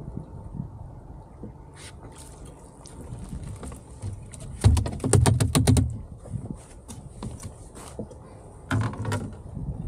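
A freshly caught fish flopping on the aluminium boat deck: a fast run of rattling taps and thuds lasting about a second, midway through. Another short burst of taps comes near the end as it is handled, with wind on the microphone throughout.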